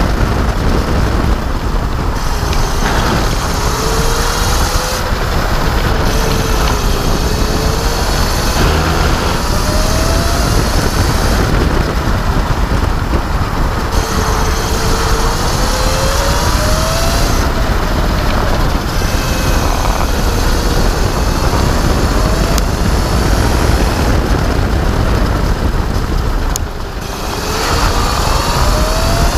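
Electric racing kart at speed, heard on board: heavy wind and road rumble, with the electric motor's faint whine rising and falling in pitch as the kart accelerates and slows. The noise dips briefly near the end.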